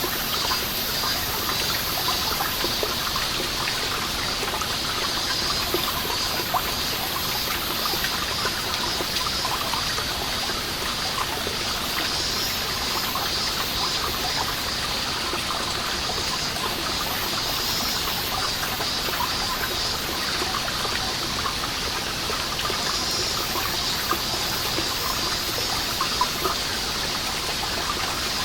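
Many water drops falling from a seeping moss wall, a steady scatter of small drips over a trickle. Summer cicadas call throughout in rapid high-pitched pulses that swell and fade in waves.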